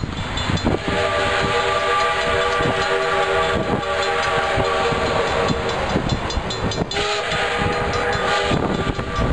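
Steam whistle of the Duluth & Northeastern No. 28 steam locomotive blowing several-note chime blasts, held long with a brief break about three and a half seconds in, over the hiss and working noise of the oncoming engine.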